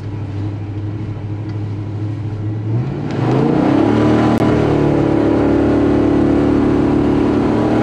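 1965 Pontiac GTO's Tri-Power 389 V8 heard from inside the cabin, running steadily and then, about three seconds in, revving up quickly and holding high and loud under hard acceleration, a tire-spinning launch.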